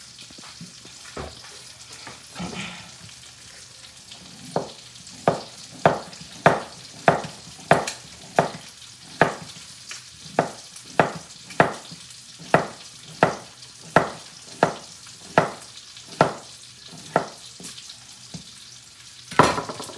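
Chef's knife slicing cucumbers on a cutting board: a sharp chop about every half second to two-thirds of a second from about four seconds in, ending in one harder knock near the end. A steady faint sizzle of a pan frying on the stove runs underneath.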